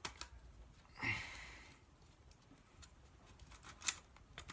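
Small clicks and light handling of BB gun parts being fitted back together, with one sharp click nearly four seconds in; a short breathy exhale about a second in.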